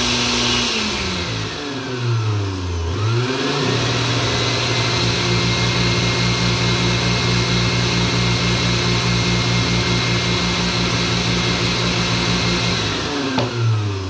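Blender motor running fast, slowing down about a second in, then spinning back up about three seconds in to a steady lower speed. It is now fed from a lower-voltage coil of a homemade tapped-transformer speed controller. Near the end it winds down.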